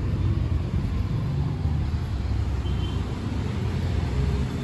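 Steady low rumble of street traffic, cars and motorbikes, with no single vehicle standing out.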